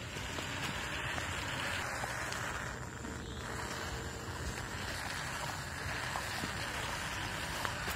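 Battery-powered cardboard toy tractor driving over sandy soil, its small motor running and its tiller attachment dragging through the dirt. The result is a steady rushing noise.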